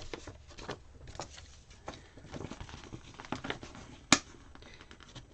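Light rustling and small scattered ticks of paper sticker sheets being handled, with one sharp click about four seconds in.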